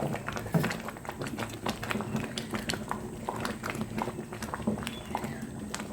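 A thick pot of pomegranate stew (rummaniyeh) bubbling on the stove, with many irregular small pops and plops.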